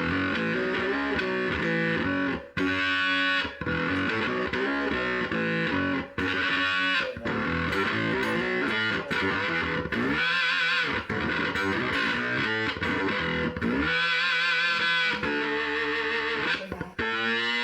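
Electric guitar played through home-built clone effects pedals, with a distorted tone, in phrases broken by short pauses every few seconds.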